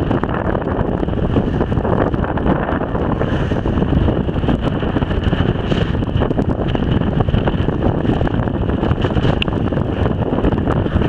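Strong wind buffeting the microphone on a boat in rough sea: a steady, loud rumbling noise without breaks.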